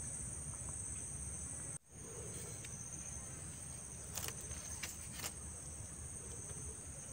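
Insects buzzing in a steady, high-pitched drone over a low outdoor rumble. The sound cuts out for an instant just under two seconds in, and a few faint clicks follow a couple of seconds later.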